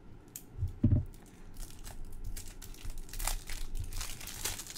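Wrapping on a deck of cards crinkling and tearing as it is pulled open by hand, with a soft knock about a second in.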